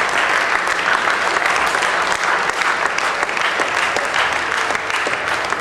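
Steady applause from a small crowd, many hand claps blending together, with a few voices under it.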